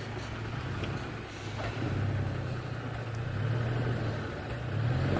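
Car engine running and revving up and down as the driver tries to reverse off a patch of ice where the car is stuck.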